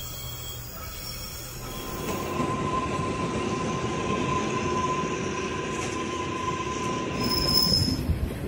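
A train running with a steady low hum, then, after a cut about two seconds in, a narrow-gauge Kalka–Shimla Railway train rattling along with its wheels squealing in one steady high tone for about five seconds, and a brief higher squeal near the end.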